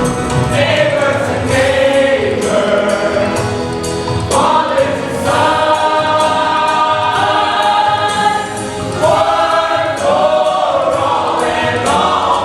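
Musical-theatre ensemble singing a chorus number together, with a steady beat under the voices.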